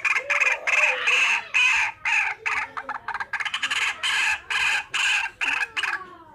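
Waterhen calling: a fast run of loud, harsh calls, about three a second, that stops shortly before the end.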